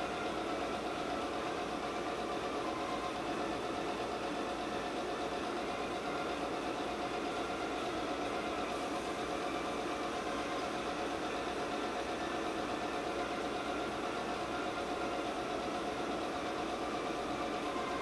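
A steady machine hum with a few constant tones in it, unchanging throughout.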